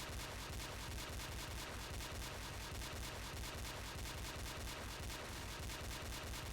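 Pistol gunfire sound effect: a fast, evenly spaced string of shots, about six a second, with no pause.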